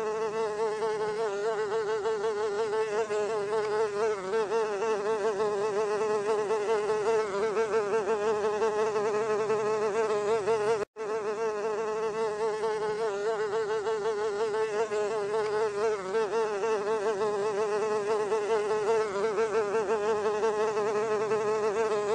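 Housefly buzzing in a continuous drone whose pitch wavers constantly, broken by a momentary cut about halfway through.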